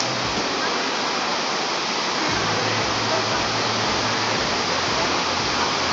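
Steady, even rushing noise with a low hum underneath that grows stronger about two seconds in.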